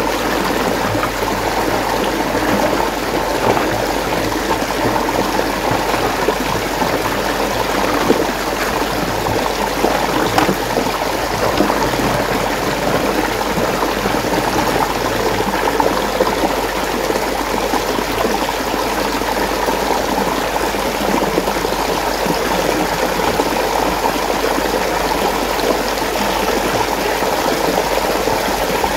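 Water swirling in a whirlpool: a steady rush of flowing water with trickling, unbroken throughout.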